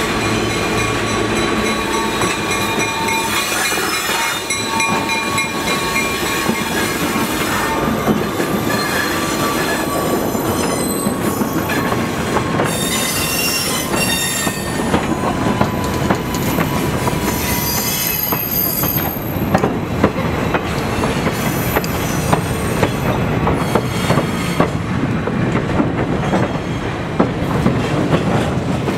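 Diesel-hauled train rolling slowly past on a curve: the locomotive's engine is heard at first, then freight cars and a passenger coach go by, their steel wheels squealing against the rail and clicking over rail joints.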